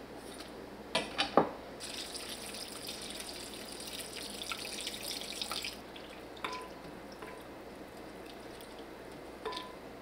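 Three sharp knocks about a second in, then water poured into a glass mixing bowl of sliced cucumber and seaweed for about four seconds. After that a wooden spoon stirs the cold soup, touching the glass bowl twice with short ringing clinks.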